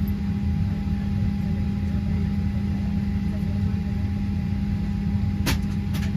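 Steady airliner cabin drone while the aircraft taxis: a low engine and air-system hum with a thin steady whine above it. Near the end, two sharp clicks about half a second apart.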